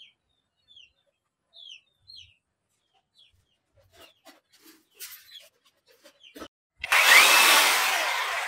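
A cordless electric chainsaw with a 12-inch bar is run briefly with no load about seven seconds in, its freshly oiled chain spinning up with a sudden whir that then fades. Before that there are only faint clicks of handling.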